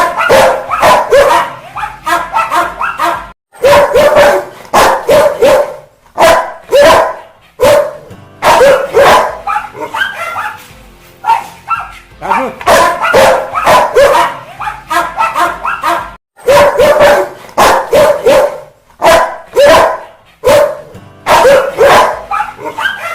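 Angry Rottweiler barking aggressively in rapid volleys of deep barks, each volley broken off by a short pause before the next.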